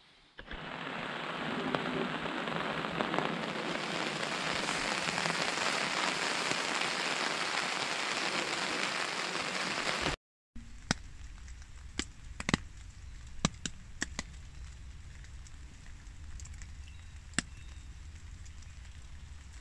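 Rain falling on a nylon tarp over a hammock: a dense steady hiss for about ten seconds, then, after a sudden cut, scattered single raindrops ticking sharply on the tarp.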